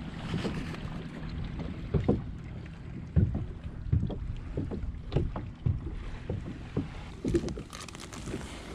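Irregular low knocks and thumps on a plastic kayak as a freshly landed flounder in a landing net is handled and unhooked.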